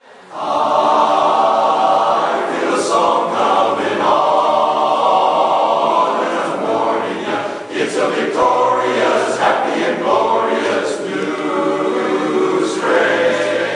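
Men's barbershop chorus singing a cappella in four-part close harmony, holding long chords and moving between them.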